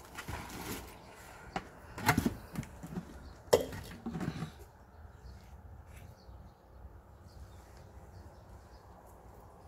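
Handling noise from a potted kalanchoe and its soil during repotting: a few knocks and rustles over the first four seconds or so, the sharpest just after two seconds and at about three and a half seconds.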